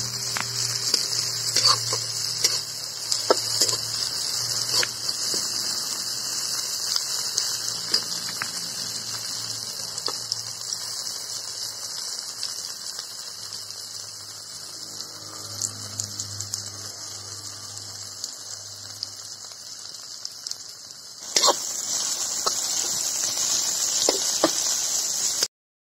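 Onions, garlic and tomato sizzling in hot oil in a black iron kadhai, a steady hiss, with a metal spatula scraping and clicking against the pan as it stirs. The sizzle gets louder about 21 seconds in and cuts off abruptly just before the end.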